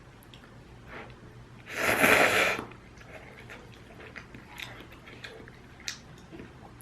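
Ramyun noodles slurped up in one loud slurp about two seconds in, followed by quieter chewing and small mouth clicks.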